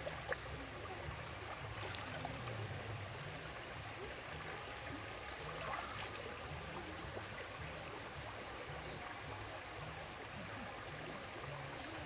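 Water of a shallow rocky river running steadily, an even rush of flowing water.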